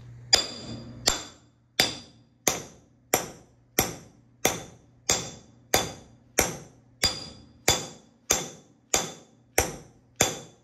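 Hammer repeatedly striking a seal driver tube to drive a new axle (hub) seal into the front steering knuckle of a Ford 6.0 Powerstroke truck. About sixteen evenly paced blows, roughly one and a half a second, each with a short metallic ring.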